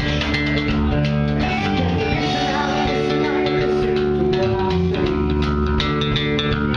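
Rock band playing live: distorted electric guitar chords held over bass guitar and drums.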